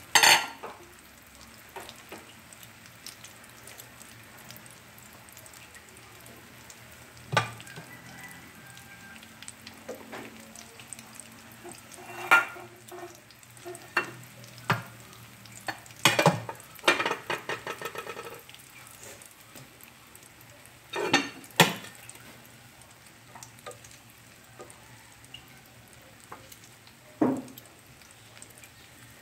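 Eggplant frying in oil in a pan with a faint steady sizzle, while a spatula knocks and scrapes against the pan about a dozen times as the cooked eggplant is lifted out. A quick rattle of clicks comes a little past halfway.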